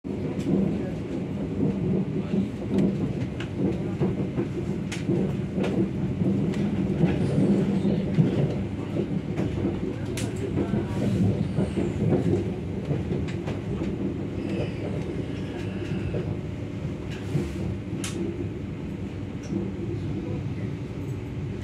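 Electric train running on rails, heard from inside the carriage: a steady low rumble of wheels on track with scattered sharp clicks over rail joints and points. It is a little quieter near the end.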